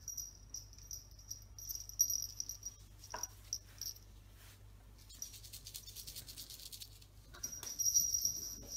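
Small bell jingling faintly, on and off with the kitten's movements, loudest near the end as the kitten runs. There is a light knock about three seconds in.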